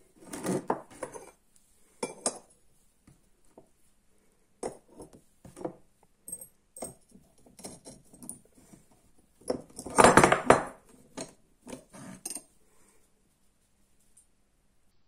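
Cut steel bar pieces clinking, knocking and scraping as they are picked up, turned and stacked together by hand. The loudest cluster of knocks and scrapes comes about ten seconds in.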